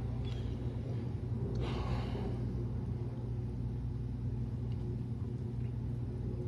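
A steady low mechanical hum, with a brief breath or rustle about one and a half seconds in.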